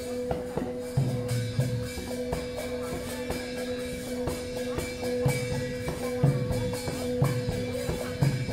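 Music with a steady drum beat and percussion over a held low note.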